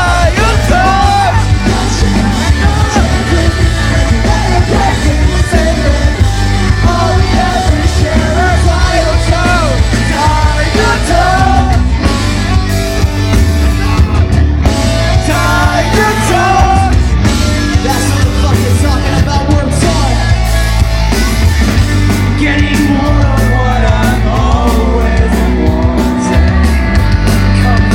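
A pop-punk band playing live at full volume: a sung lead vocal over distorted guitars, a heavy bass and a steady drum beat.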